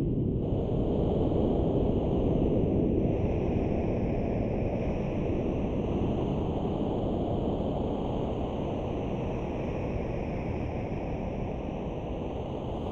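Steady rushing wind noise with no pitch, easing slightly toward the end.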